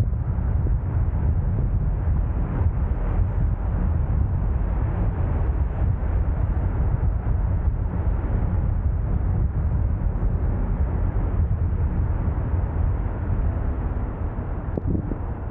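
Steady low rumble of wind buffeting the microphone together with road noise from moving along a street, easing slightly near the end.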